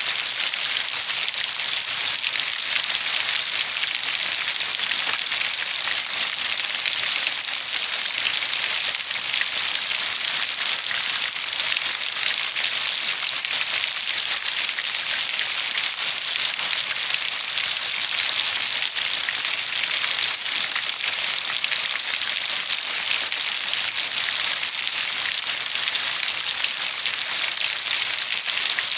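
Steady rainfall: a dense, even hiss of many drops.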